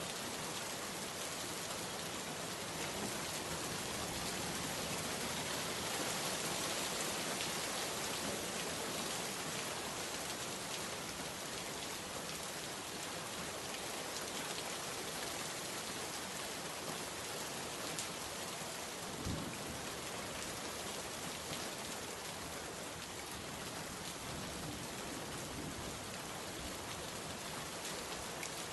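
Steady, even hiss like falling rain, with one soft knock about two-thirds of the way through.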